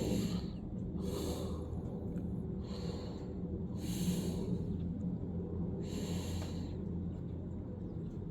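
A person breathing sharply through the nose close to the microphone, five separate puffs spread unevenly over a few seconds, over a steady low hum.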